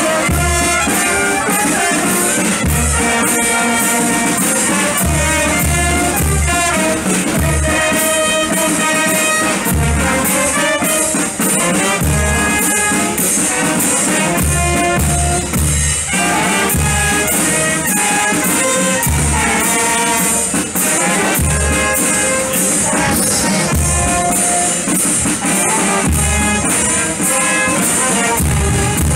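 Brass band music: trumpets and trombones playing held notes over a recurring low drum beat.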